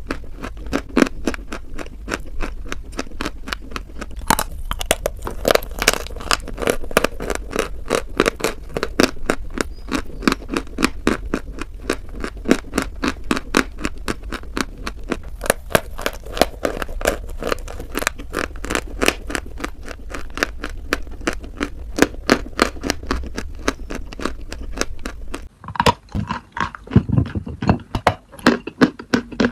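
Close-miked crunching and chewing of dry white chalk, a rapid run of crisp crackles. About 26 seconds in, a low hum under the chewing stops and louder, separate bites into a large chalk lump begin.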